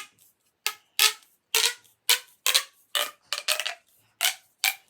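Plastic pop tube being stretched and squashed, its corrugated folds popping open and shut in a quick series of short ringing pops, about two a second.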